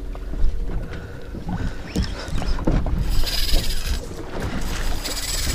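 Wind and water noise on an open fishing boat at sea, with a faint low hum and a few light knocks, and a brief hiss about three seconds in.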